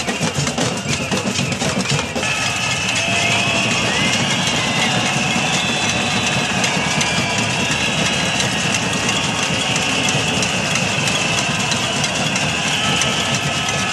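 Din of a large protest crowd at a pot-banging cacerolada. Dense, rapid banging of drums and pots gives way, about two seconds in, to a steady wall of cheering and whistling over continuous clatter.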